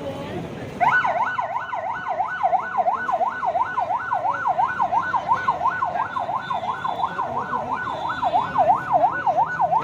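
Electronic siren wailing in a rapid yelp, its pitch rising and falling about three times a second; it starts about a second in.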